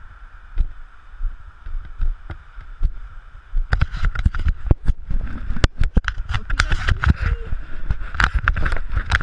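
Wind rumbling on the camera's microphone. From about four seconds in, a dense, irregular run of scrapes and knocks as a hand handles the camera.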